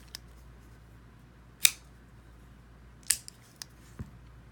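CRKT Crossbones folding knife being worked open and closed on its IKBS ball-bearing pivot: sharp metallic clicks as the blade locks up and the lock is released. There are two loud clicks about a second and a half apart and several fainter ones. This is a test of the lock for sticking after Sharpie was put on the lock face.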